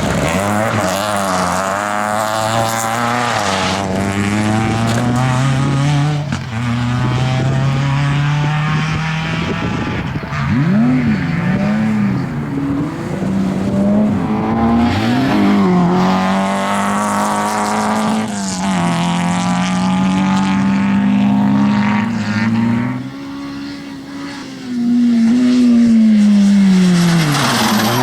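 Rally cars at full throttle on a special stage: engines revving high and climbing through gear changes, with a sharp drop in pitch as a car passes close by, once about ten seconds in and again near the end.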